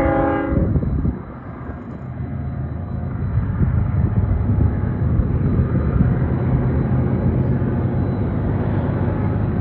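Diesel freight locomotive horn ending about half a second in, followed by the steady low rumble of the lead locomotives hauling a long freight train around the curve, growing louder over the first few seconds and then holding.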